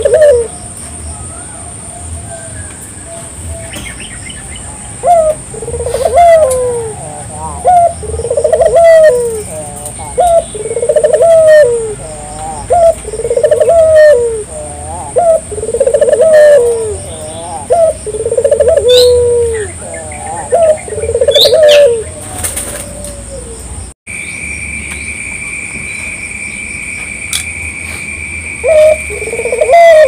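Puter dove (a collared dove) cooing in a rhythmic series of about a dozen coos, roughly one every second and a half, pausing for several seconds and starting again near the end. A steady high-pitched tone runs through the last few seconds.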